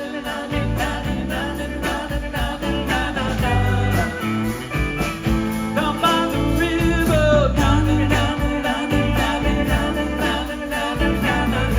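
Country-blues rock song with guitar and a steady beat, in a passage between sung lines.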